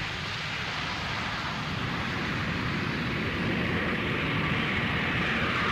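Jet engines of a MiG-25 fighter: a steady rushing noise that slowly grows louder.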